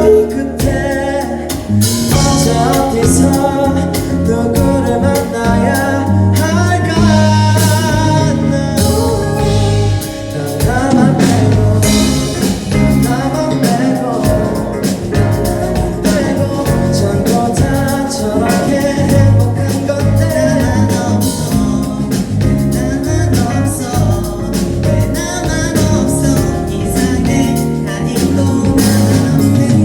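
Korean pop ballad sung over a band backing with drums.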